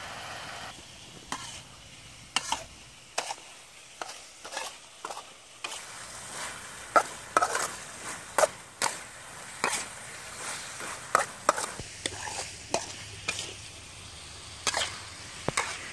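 Spatula stir-frying snails in a metal wok: irregular scrapes and sharp knocks against the pan, with a faint sizzle underneath.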